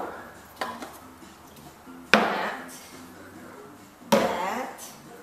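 Cleaning-product containers (a spray can and spray bottles) set down one after another on a truck's fender: three sharp knocks, roughly two seconds apart, each with a short ringing tail. Faint background music plays underneath.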